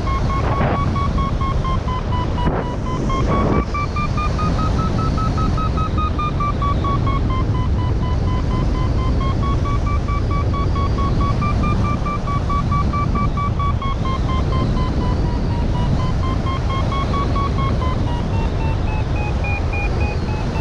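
XC Tracer Maxx variometer sounding its continuous sink tone, its pitch slowly wavering up and down with the rate of descent, over steady wind rush on the microphone. A few brief knocks come in the first few seconds.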